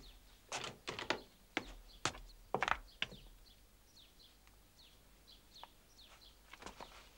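Small birds chirping with short, high, falling chirps, plus a run of sharp irregular clicks and knocks in the first three seconds.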